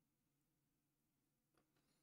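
Near silence: faint room tone, with a faint click or two about three quarters of the way through.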